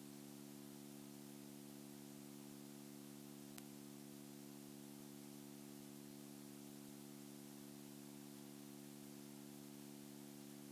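Near silence: a steady low hum over faint hiss, with one tiny click about three and a half seconds in.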